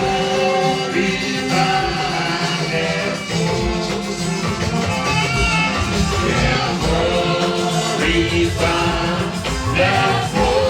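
A hymn sung by several voices with instrumental backing and a steady beat.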